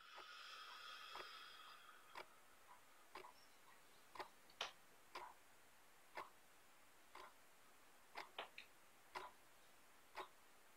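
A clock ticking faintly, about one tick a second, after a faint high tone that fades out about two seconds in.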